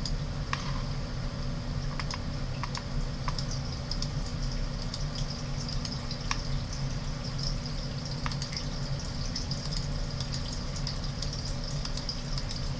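Sparse, irregular light clicks from working a computer's mouse and keyboard during digital painting, over a steady low hum and hiss.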